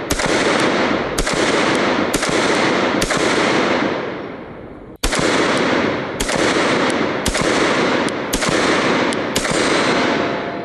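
9mm Glock 19 pistol shots fired at a steady pace of about one a second, each with a long echoing decay. Five shots are fired, then after a pause of about two seconds a second string begins, with fainter extra reports falling between its main shots.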